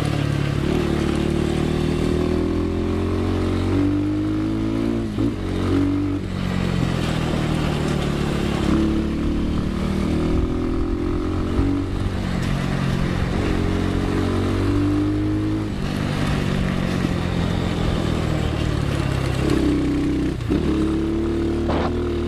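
Enduro dirt bike engine running while being ridden, its pitch repeatedly climbing and dropping with throttle and gear changes, with a few brief dips where the throttle is shut off.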